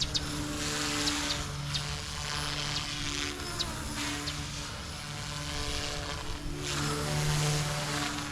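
Small electric RC helicopter in flight: a steady rotor buzz and motor whine that swells and eases as it manoeuvres, with gusts of wind noise on the microphone.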